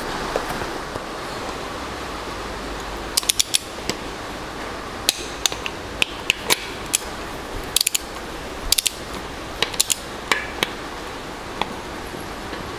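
Torque wrench ratcheting and clicking on the cylinder head bolts of an Evinrude 150 outboard block as they are tightened in stages. Short sharp metallic clicks come singly or in quick clusters every second or so, starting about three seconds in.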